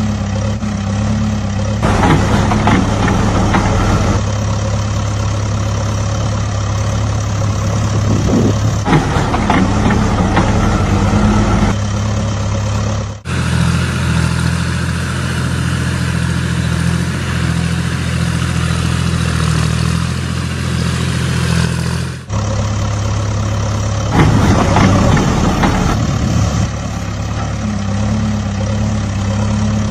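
Heavy truck or construction-vehicle engine running steadily at a low idle-like pitch, with louder, rougher stretches laid over it. The sound cuts off abruptly and restarts twice, once about thirteen seconds in and again about twenty-two seconds in.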